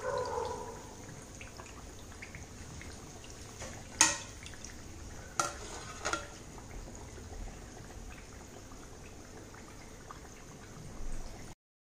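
Kachoris deep-frying in oil with a faint, steady sizzle. A sharp metallic clink about four seconds in and two lighter clicks a second or two later as a wire skimmer lifts a fried kachori out onto a plate. The sound cuts off suddenly near the end.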